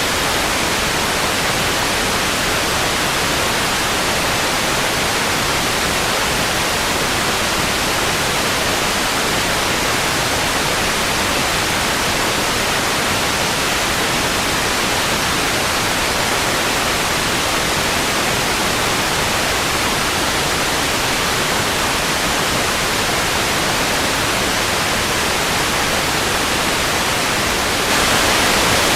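Steady hiss of vintage TV static. It gets slightly louder about a second before the end.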